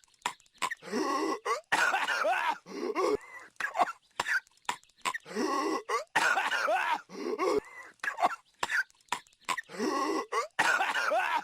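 A cartoon character's coughing fits: bouts of hacking coughs lasting one to two seconds, with short sharp coughs and brief gaps between them, over and over.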